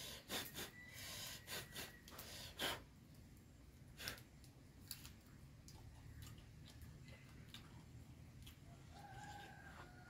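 Small wood fire crackling faintly under roasting corn cobs, with a cluster of sharp snaps in the first three seconds and another about four seconds in, then only a low hum. A bird calls briefly near the end.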